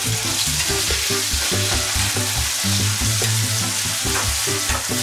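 Chopped tomatoes and onions sizzling steadily in hot oil in an aluminium kadai while a steel ladle stirs them.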